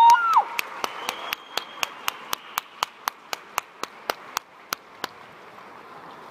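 A short whistle blast at the start, followed by sharp clicks repeating evenly about four times a second for about four and a half seconds.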